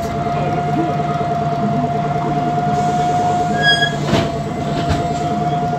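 MAN Lion's City G CNG articulated bus with its MAN E 2866 gas engine running, heard on board: a steady engine and drivetrain hum with a whine held at nearly one pitch. A short beep sounds about three and a half seconds in, with a knock just after.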